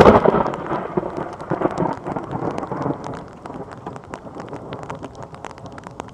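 A close thunderclap: a loud crack right at the start, then rumbling that fades over about three seconds. Rain patters throughout, with many small drop clicks.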